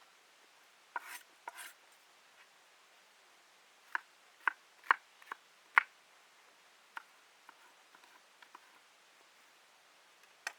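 Irregular sharp knocks and light taps, a handful of hard strikes in a quick run at about two a second near the middle, with two brief scraping sounds before them.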